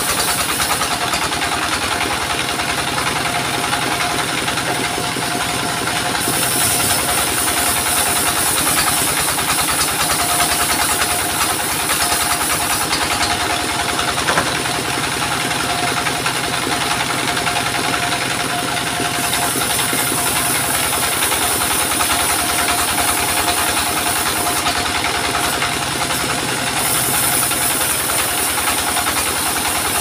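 Stationary diesel engine running steadily, driving a circular sawmill blade with a constant whine. In several stretches a high, hissing rasp joins in as the blade cuts lengthwise through waru (sea hibiscus) wood.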